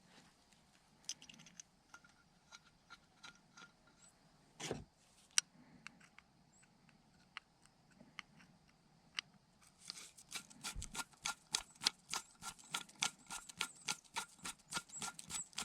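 Small metal carburetor parts clicking and tapping as the carburetor is put back together, with scattered clicks and one louder knock, then a quick run of about five clicks a second from about ten seconds in.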